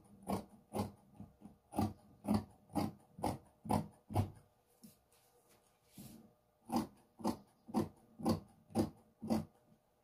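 Scissors snipping through crepe dress fabric in steady strokes, about two a second, pausing for about two seconds near the middle before the snipping resumes.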